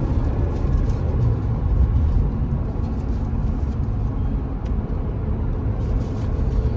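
Interior noise of a Mercedes-Benz R350 4matic on the move: a steady low rumble of road and tyre noise with the engine running underneath, no knocks or odd noises standing out.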